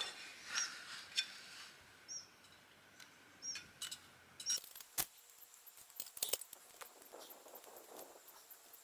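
Hand secateurs snipping loose roots: a series of short, sharp metallic snips and clicks spaced a second or so apart, with a faint rustle of the roots.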